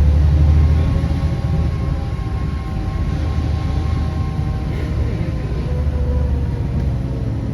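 Motor vehicle running steadily, a heavy low rumble of engine and road noise with a faint hum that drifts slightly in pitch.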